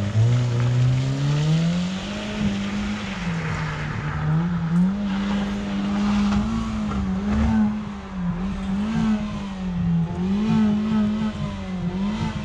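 Vehicle engine revving: it climbs from a low pitch over the first second or so, then holds at high revs with repeated brief dips as the throttle is eased and reapplied.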